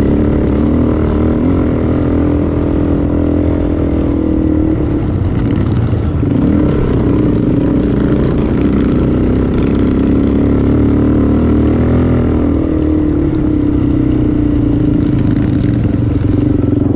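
Motorcycle engine running as the bike rides along a dirt track, its pitch easing off and picking up again a few times.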